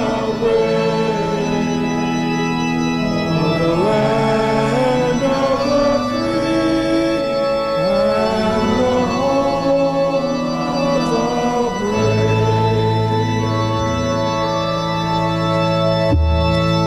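Organ playing a slow hymn in long held chords, with a melody moving above sustained bass notes.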